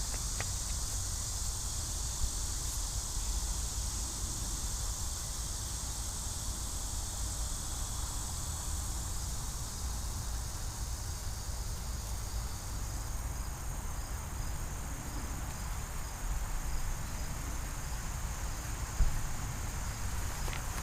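Steady high-pitched chorus of insects, such as crickets or katydids, with a fainter evenly pulsing trill joining about halfway through. A low rumble runs underneath.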